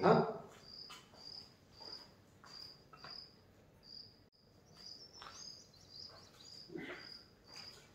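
A cricket chirping steadily: short high chirps at one pitch, about two a second. A few faint rustles and soft knocks come and go, the loudest near the end.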